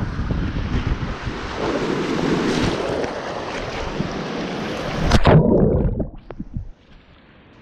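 Water rushing and splashing around an inflatable tube as it slides down a water-slide chute, with wind noise on the camera microphone. About five seconds in comes a louder splash as the tube runs out into the landing pool, then the sound turns muffled and much quieter.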